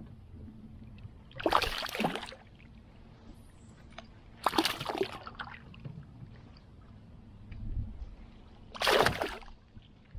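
Water splashing and sloshing around a small boat in three short bursts, about a second and a half, four and a half, and nine seconds in.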